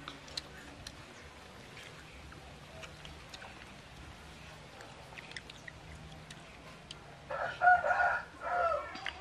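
Rooster crowing once near the end, a loud call of about two seconds in two parts. Before it, only faint scattered clicks.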